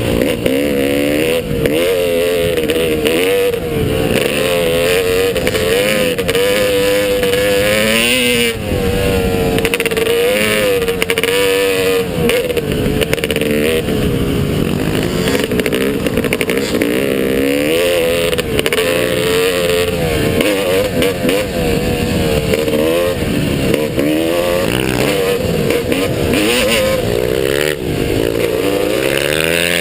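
Motocross bike engine running hard under a rider, its pitch rising and falling every second or two as the throttle is opened and closed, loud throughout.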